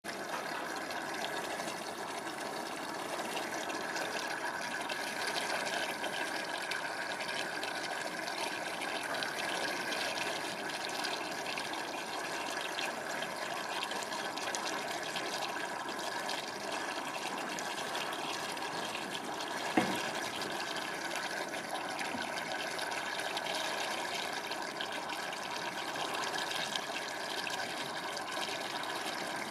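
Steady rush of running water, with one short sharp knock about two-thirds of the way through.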